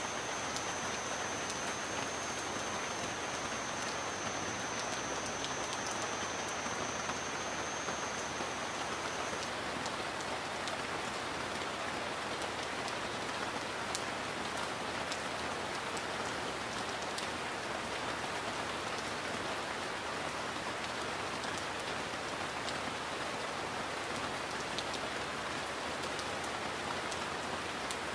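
Heavy rain falling steadily, an even dense hiss with a few sharper drop ticks here and there. A thin high-pitched steady tone sounds alongside it and stops about a third of the way in.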